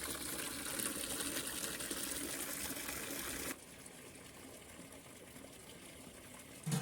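Water pouring or running in a steady rush that cuts off suddenly about three and a half seconds in, leaving a fainter hiss.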